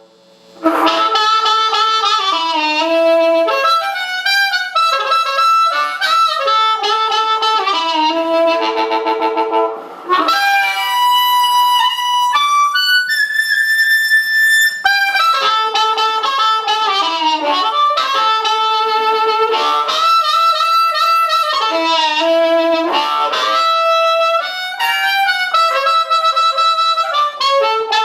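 Blues harp played through an amplifier: a Seydel 1847 Noble harmonica in D into a Shure 520 microphone and a c. 1960 Danelectro Corporal 132 amp. It plays phrase after phrase of notes, with one long high note held for a couple of seconds about halfway through.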